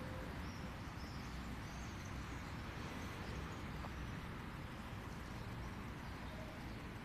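Outdoor nature ambience: a steady rushing background noise with a few faint, short bird chirps in the first few seconds.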